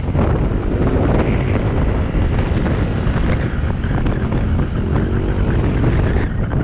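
Steady wind rumble on the microphone of a moving ride, with a vehicle engine running underneath.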